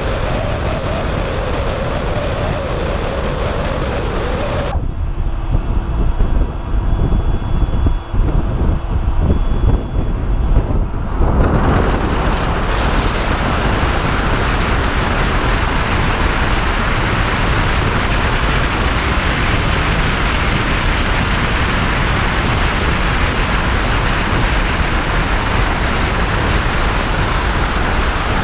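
Wind rushing over a camera mounted on the outside of an electric Tesla Model S at highway speed, with tyre and road noise. The sound changes abruptly about five seconds in and again about twelve seconds in, the middle stretch heavier with low wind buffeting and duller in the highs, then steady rushing noise to the end.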